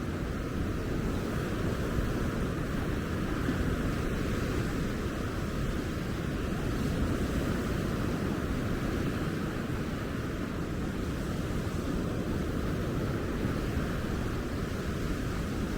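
Ocean surf washing steadily onto the beach, with a low wind rumble on the microphone.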